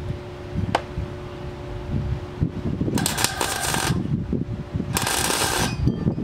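Gas-shielded MIG welder arcing in two short bursts, the first about a second long and the second a little shorter, each a dense hiss. A single sharp click comes early on.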